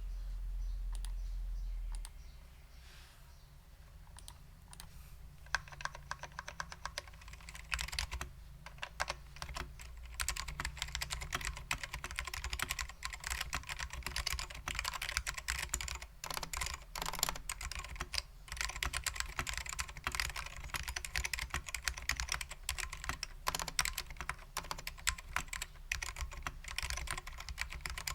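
Typing on a custom 60% keyboard with lubed SKCM Black Alps switches, PBT keycaps and a stainless steel plate: a rapid run of key clicks that turns dense about five seconds in, broken by a few short pauses.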